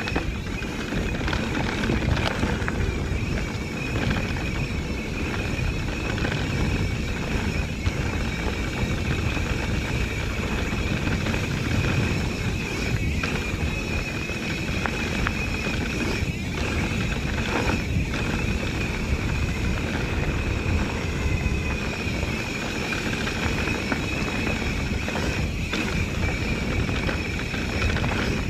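Mountain bike rolling along a dirt trail: a steady rumble of tyres and wind on the microphone, with scattered knocks and rattles from the bike over bumps and a steady high tone above it.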